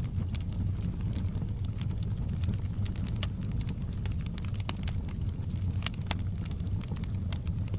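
Wood fire crackling in an open fireplace: irregular sharp snaps and pops over a steady low rumble of the burning flames.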